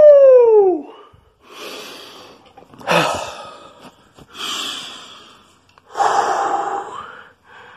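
A man's loud yell, falling in pitch, right at the start. It is followed by heavy, gasping breaths about a second apart, with a sharp gasp about three seconds in, as he catches his breath from a workout.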